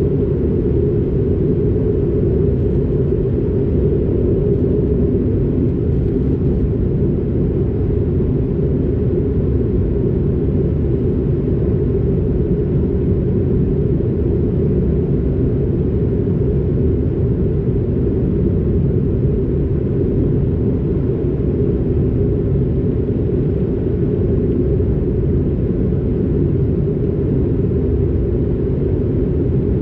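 Steady low rumble of an Airbus A220-300's cabin in flight: engine and airflow noise heard from a window seat, with a fainter hiss above it.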